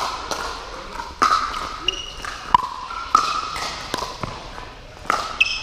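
Pickleball rally: paddles striking the hollow plastic ball and the ball bouncing on the court, a series of sharp pops roughly a second apart, echoing in a large indoor hall.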